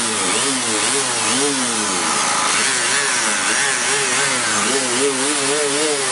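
Electric random orbital sander running on car paint. Its motor hum keeps rising and falling in pitch, over a steady scratchy hiss of abrasive on paint.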